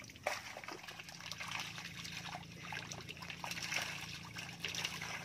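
Water trickling and spattering at the surface around a raised fish-pen net, with many small irregular splashes, over a faint steady low hum.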